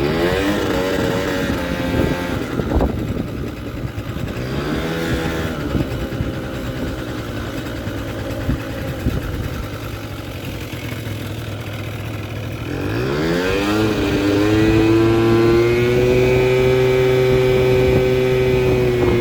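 Kymco Super Fever ZX 50cc two-stroke scooter engine running and being revved: short rises and falls at first, a steadier lower speed in the middle, then a climb near the end to high revs held for several seconds before it drops. The owner takes its running to mean it isn't getting enough fuel from the carburettor.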